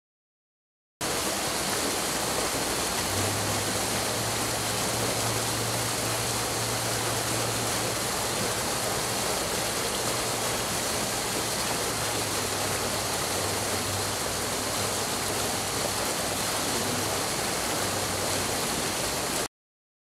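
Rushing water of a stream cascading over rocks: a steady, even rush that cuts in suddenly about a second in and cuts off suddenly near the end.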